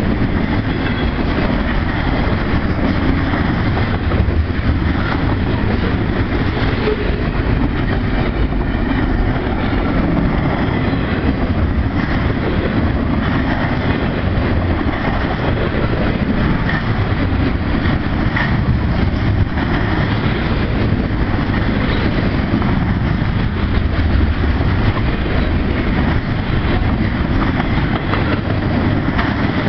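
Double-stack intermodal freight train's well cars rolling past at speed: a steady rumble and rattle of steel wheels on the rails, with occasional sharp clanks.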